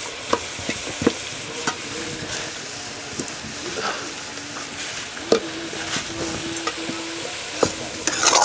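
A ladle stirring food frying in a large cooking pot, with a steady sizzle and several sharp knocks and scrapes of the ladle against the pot.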